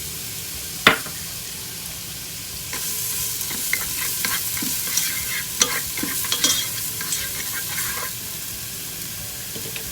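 Chopped onion sizzling in hot oil in a pan while being stirred, with a sharp knock of the utensil on the pan about a second in and a run of scraping strokes in the middle.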